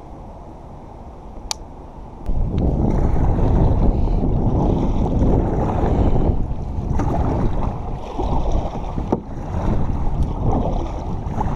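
Strong wind buffeting the microphone, a heavy low rumble that comes in about two seconds in and keeps gusting, over water lapping around a kayak being paddled through choppy water. A few light knocks stand out.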